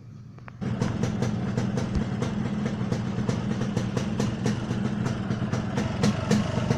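Yamaha RX-King's two-stroke single-cylinder engine idling with its exhaust set up for the raspy 'ngorok' (snoring) note. It gets suddenly louder about half a second in, then gives sharp pops about three or four times a second over a steady low drone.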